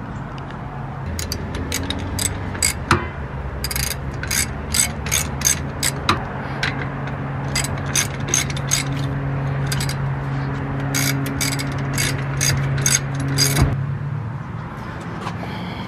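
Socket ratchet clicking in quick runs as it backs out the already-loosened 18 mm brake caliper bolts. A steady low hum runs underneath.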